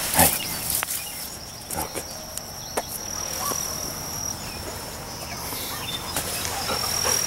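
Blackberry brambles and leaves rustling, with scattered brushing and snapping as a dog pushes through the thicket, over a steady high-pitched insect drone.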